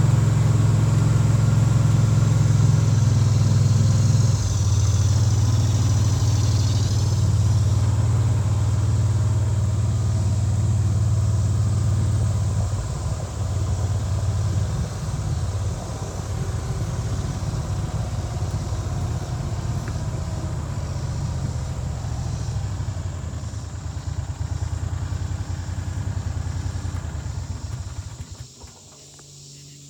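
Vehicle engine running at a steady low pitch, easing a little in level over time, then shutting off a second or two before the end.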